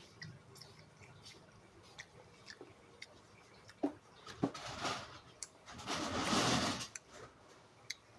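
Close-up eating sounds from a person eating a burger: scattered small mouth clicks, then a brief rustling noise about four and a half seconds in and a louder one of about a second around six seconds in.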